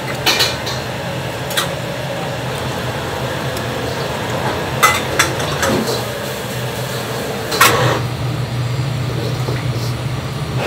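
Ceramic bowls and a metal spoon clinking, a handful of sharp clinks spread through, over a steady low kitchen hum.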